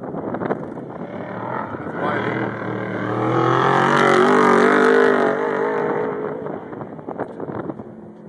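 An off-road desert race vehicle's engine approaches and passes close by. It is loudest about four to five seconds in, its pitch wavering with the throttle, then fades away.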